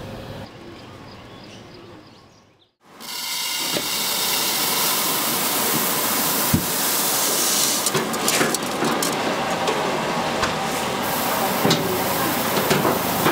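Hot oil sizzling in a large wok during stir-frying, a loud steady hiss with scattered sharp knocks and scrapes of a metal spatula. It starts suddenly about three seconds in, after a moment of near silence.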